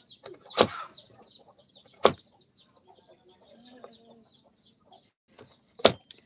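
Three sharp knocks of a knife chopping against a board: one about half a second in, one about two seconds in and one near the end. Under them, chicks peep steadily in short high chirps.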